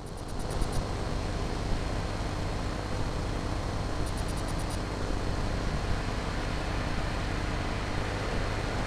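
A steady rumbling wash of noise, heaviest in the low end, that swells in at the start and then holds level.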